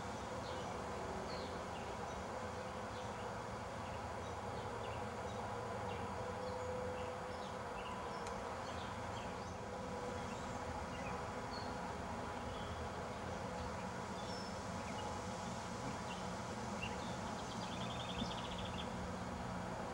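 A steady buzzing hum and hiss, with faint short chirps scattered throughout and a brief rapid trill near the end.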